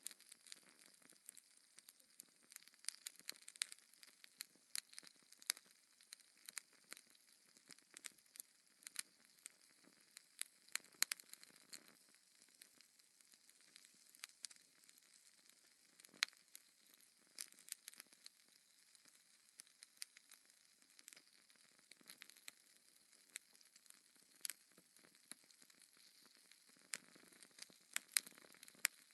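Wood logs burning in a fireplace, crackling with irregular sharp pops and snaps over a faint hiss.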